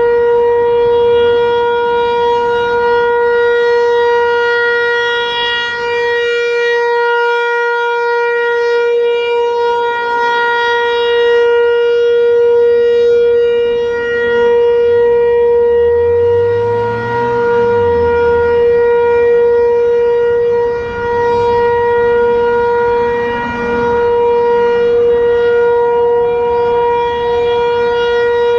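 Federal Signal 508-128 rotating outdoor warning siren sounding the alert signal, a loud, steady single tone that holds its pitch, its loudness dipping every several seconds as the rotating horn turns away.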